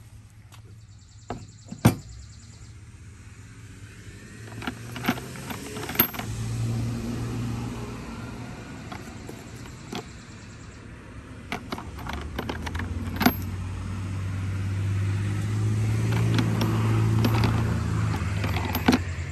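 Ceramic cabinet knobs clinking against each other in a cardboard box as they are picked through, in a handful of sharp clicks. Behind them a vehicle's engine hums low, swelling over the second half and easing off near the end.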